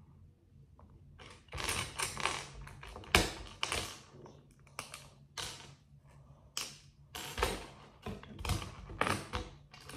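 Loose plastic building bricks clattering and clicking as hands rummage through a heap of them on a table, in irregular bursts of clacks starting about a second and a half in.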